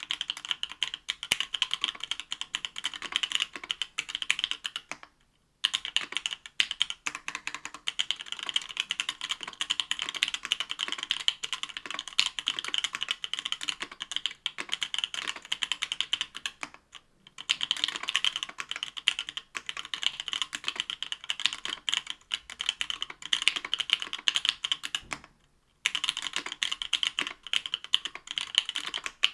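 Fast typing on a mechanical keyboard with stock 43 Studio Toy Bricks linear switches, 63.5g, in an aluminium plate under GMK keycaps: a dense run of keystroke clacks broken by three short pauses.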